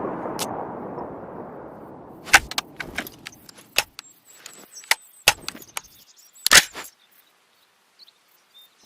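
The echo of a burst of AR-15 rifle fire dies away over about two seconds. It is followed by a run of irregular sharp metallic clicks and clacks, with a loud one about two seconds in and another near six and a half seconds.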